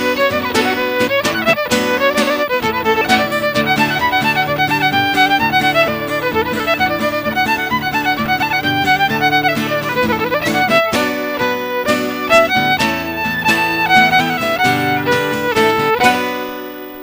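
Irish traditional fiddle playing a quick, busy tune over sustained lower accompaniment, ending on a held chord that fades out near the end.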